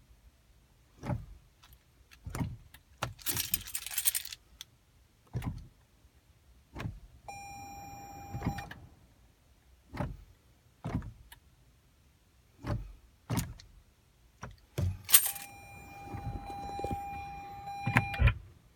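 A 2016 Toyota Highlander that fails to start: scattered clicks and knocks and a jangle of keys. A steady electronic chime from the car sounds twice, briefly about seven seconds in, then for about three seconds near the end.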